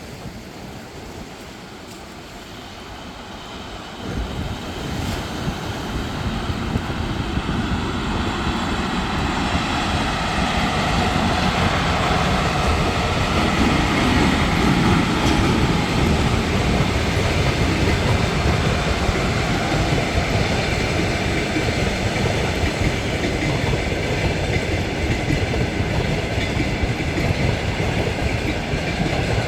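A train hauled by a 2ES4K electric locomotive passing on the line, its wheels clattering over the rail joints. It jumps louder about four seconds in, builds for several seconds more, then runs loud and steady.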